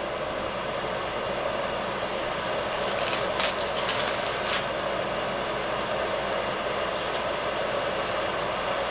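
A steady rushing hiss, with a cluster of sharp knife taps on a cutting board about three to four and a half seconds in and two more around seven seconds, as an onion is chopped.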